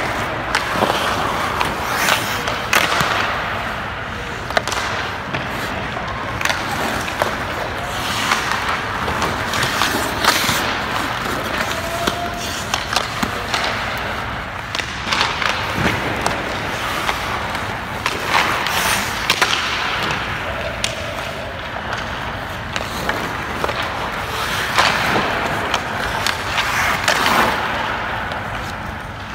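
Hockey skate blades scraping across the ice in repeated swells of a second or two as the goalie pushes and slides across the crease, with sharp clacks of pucks and sticks hitting pads and ice.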